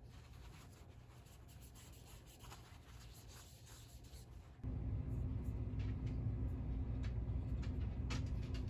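A cloth rubbing and wiping a metal control knob from a Pioneer SX-1980 receiver, a soft scratchy scrubbing. About halfway through a steady low hum comes in suddenly and stays, louder than the rubbing, with a few light clicks over it.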